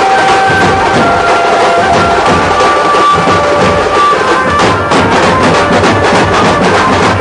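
Loud traditional music: fast drumming under a melody of held notes that step from pitch to pitch.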